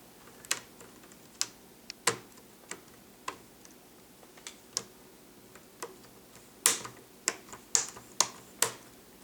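Plastic laptop screen bezel being pressed onto the lid of an HP Pavilion DV6, its clips snapping into place in a string of sharp, irregular clicks, the loudest coming in quick succession near the end.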